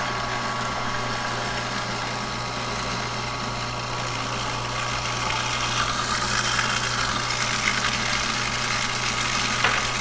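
Small electric food processor running steadily, its motor humming as it blends basil pesto while olive oil is drizzled in through the feed tube. The sound gets a little louder in the second half.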